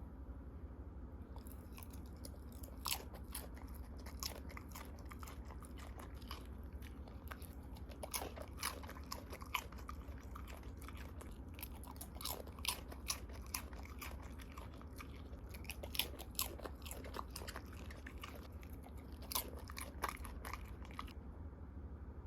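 Jindo dog chewing and biting food, with irregular wet crunches and clicks of teeth and jaw that come thick and fast for most of the stretch and stop about a second before the end. A faint low hum runs underneath.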